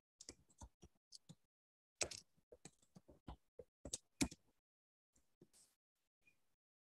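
Faint, irregular clicks and taps in quick runs, the loudest about two and four seconds in.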